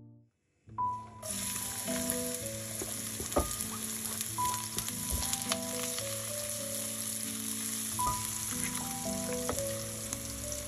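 Chopped onion sizzling in hot oil in a nonstick pan as it is stirred with a silicone spatula. The sizzle starts about a second in and holds steady, with soft background music of stepped melodic notes underneath.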